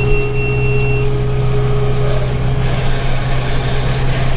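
Tractor engine running steadily while pulling a round baler. A steady high-pitched electronic tone sounds over it and cuts off about a second in.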